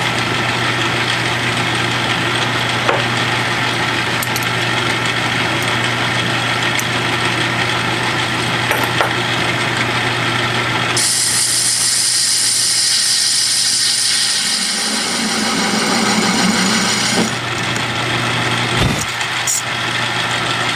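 Metal lathe running with a steady motor hum while a carbide-insert tool cuts the spinning metal part. A loud hissing cutting noise joins about halfway through and stops about six seconds later.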